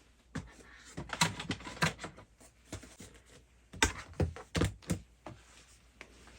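Irregular clicks and taps of small objects being handled, a few sharper knocks about a second in and again between four and five seconds.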